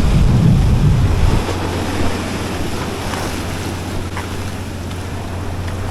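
Wind buffeting the microphone, heavy for the first second and a half and then easing to a steady rush, over waves washing on the river shore.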